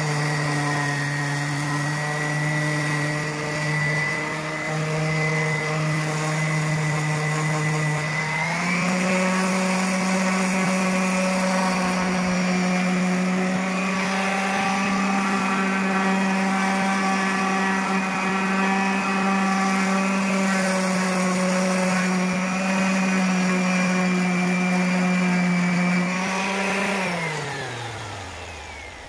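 Cordless orbital sander running steadily as it sands down a cured epoxy repair on a fibreglass boat hull, its pitch stepping up about a third of the way through. Near the end it is switched off and spins down with a falling whine.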